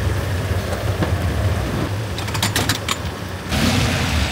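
Street traffic with a vehicle engine running close by, a steady low rumble. A few sharp clicks come about two and a half seconds in, and a louder rush of hiss rises near the end.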